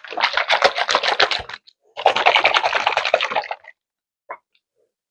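Oil-and-vinegar salad dressing being shaken hard in a closed container: two bouts of rapid sloshing rattles, each about a second and a half, with a short pause between. A small click follows near the end.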